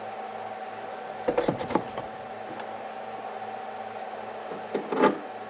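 Small hardware and parts being handled, two short bursts of light clicks and knocks, over a steady electrical hum.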